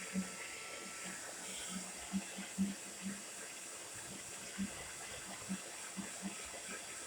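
TRESemmé Salon Smooth hair dryer running steadily, a constant rush of air, with irregular short low bumps over it.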